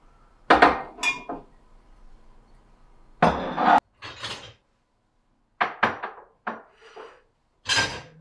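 Dishes and glassware being handled and set down, a series of separate clinks and clatters. There are two near the start, a longer clatter in the middle, and several more toward the end.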